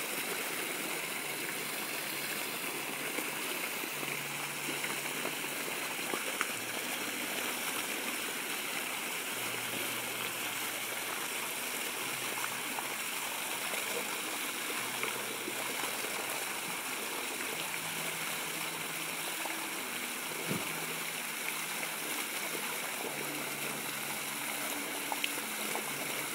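Water gushing from an open fire hydrant's side outlet and splashing onto the pavement: a steady rushing and splattering.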